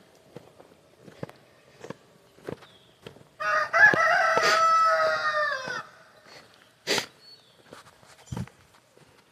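A rooster crowing once, a single drawn-out call of about two and a half seconds that drops in pitch at the end. Short footsteps on loose dirt sound before and after it.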